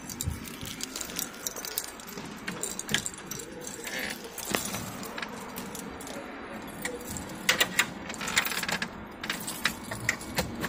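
Irregular light metallic clicks and clinks, with a cluster of sharper clicks about seven and a half seconds in.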